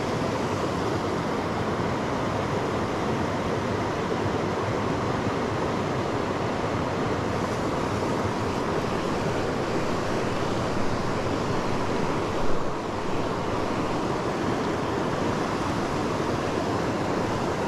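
Steady rush of river current, with one short thump about twelve and a half seconds in.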